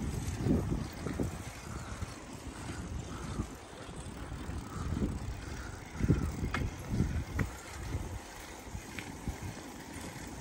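Bicycles rolling along a towpath: low, uneven rumble from the tyres and frame, with wind buffeting the microphone, and a couple of sharp clicks about two-thirds of the way through.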